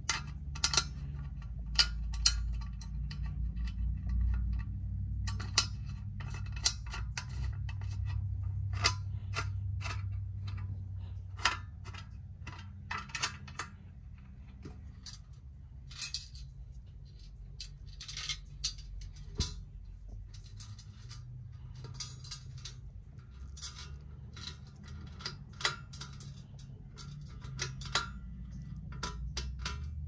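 Hunter 1930's Original ceiling fan light kit parts being handled and fitted together: irregular metallic clicks and clinks from the metal mounting plate, chrome-rimmed shade and bead pull chain, over a low rumble of handling.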